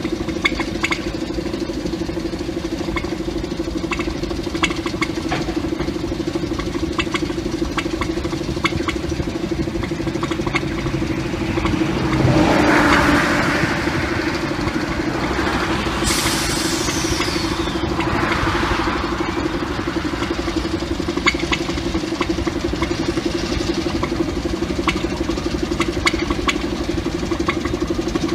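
A 1950s diesel shunting locomotive's engine running steadily with a low hum and small irregular ticks. About twelve seconds in there is a brief louder rush of noise, and a few seconds later a hiss that falls in pitch.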